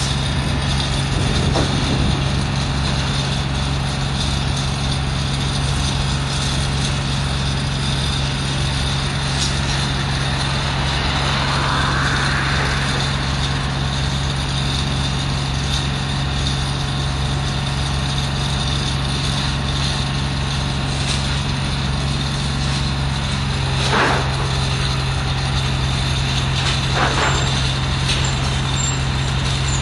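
Haulotte H21TX boom lift's diesel engine running at a steady speed with a constant low hum, powering the hydraulics as the telescopic boom raises the basket. Two brief louder sounds come near the end.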